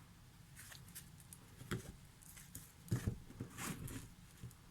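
A deck of tarot cards being handled on a table: irregular rustles and a few light taps, the loudest about three seconds in.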